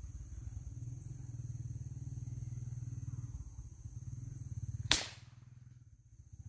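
A PCP air rifle fires a single shot about five seconds in: one sharp crack. Before it there is a steady low hum and a faint high buzz.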